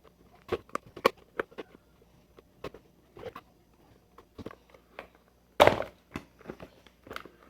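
Irregular plastic clicks and knocks from a blender's base housing being handled and pried at its snap-fit clips, with one louder knock about five and a half seconds in.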